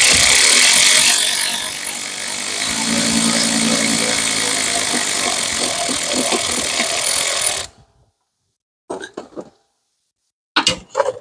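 Power tool running for about seven and a half seconds, driving the alternator's adjusting bolt clockwise to tension the serpentine belt. It takes on a lower hum a couple of seconds in, then stops suddenly and is followed by a few brief knocks.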